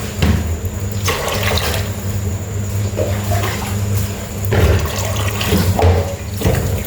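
Rice-soaking water being poured from a container into a bowl of squeezed vegetable stalks, a continuous splashing pour that surges unevenly.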